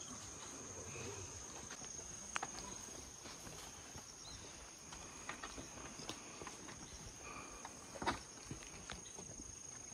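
Steady high-pitched insect drone, with scattered light clicks and a sharp knock about eight seconds in.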